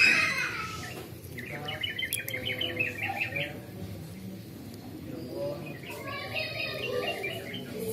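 A small bird chirping in quick runs of short, high notes, once about a second and a half in and again near six seconds, over faint background voices.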